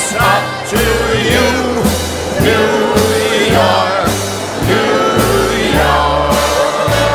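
Music: a song with singing voices over a bass line and a steady beat.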